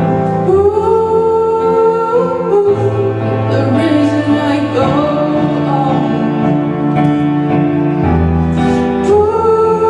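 A solo singer holding long drawn-out notes with little slides between them, with no clear words, over a steady instrumental backing track in a slow pop ballad.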